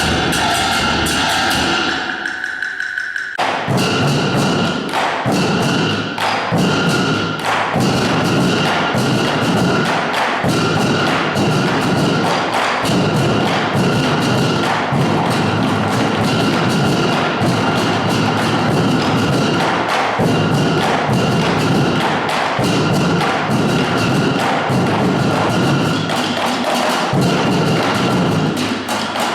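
A band playing, with many sharp percussion strokes over steady held notes; the music thins out briefly about two seconds in, then comes back dense.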